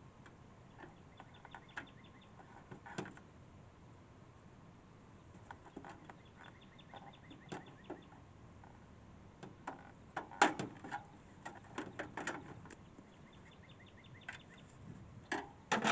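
Scattered plastic clicks and knocks as the front panel of a window air conditioner is pried and pulled at, the loudest cluster a little past the middle; the panel won't come free because the control knobs are still on.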